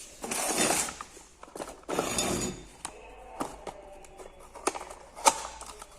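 Spare-part packaging being handled: two spells of rustling in the first half, then several sharp clicks and knocks as boxed parts are moved and set down.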